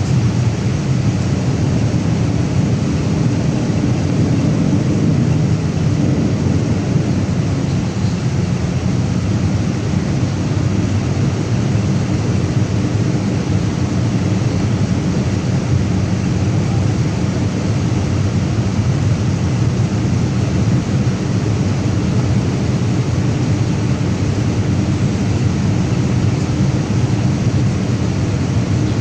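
Steady cabin noise of a Boeing 787 Dreamliner on approach: the low, even rush of engines and airflow heard from inside the passenger cabin.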